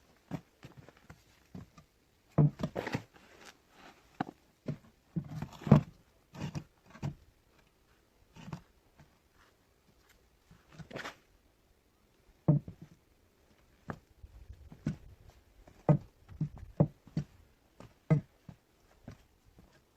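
Irregular knocks and thuds with some scraping, a dozen or so of them unevenly spaced, the loudest a few seconds in and again near the middle and toward the end: the sounds of handling work.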